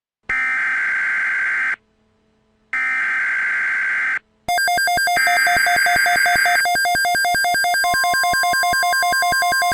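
Two bursts of Emergency Alert System header data, a harsh electronic warble about a second and a half each with a short silence between. About four and a half seconds in, a loud, rapidly pulsing synthesized alert tone starts, with a third data burst over its start and a second steady tone joining near the end.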